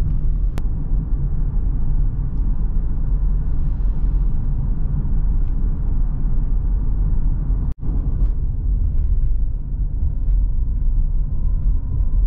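Steady low rumble of a car's engine and tyres heard from inside the cabin while driving, breaking off for an instant about eight seconds in.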